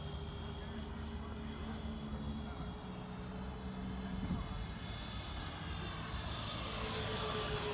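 Twin 80 mm electric ducted fans of a Freewing F-14 Tomcat RC jet whining in flight. The whine grows louder in the second half and its pitch falls toward the end as the jet passes.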